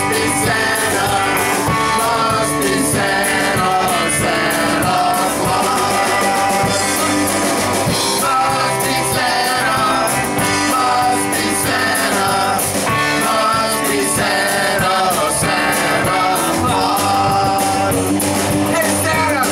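Live rock and roll band playing: hollow-body electric guitars, drum kit and upright bass in a steady, upbeat groove.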